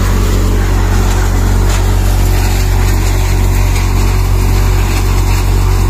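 Four-fan cutter-thresher running steadily with a constant low mechanical hum.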